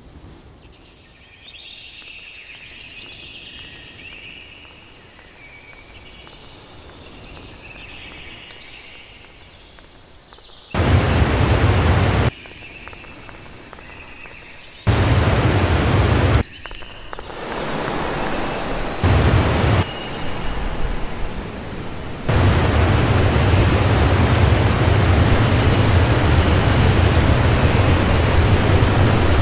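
Quiet background with faint high chirping for about ten seconds, then loud static-like hiss with a heavy low rumble that cuts in and out abruptly, in stretches of about a second and a half, before holding steady for the last seven seconds.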